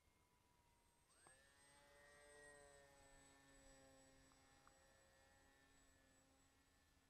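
Near silence, with faint steady electronic tones: a chord of several held pitches that slides up into place about a second in and slowly fades.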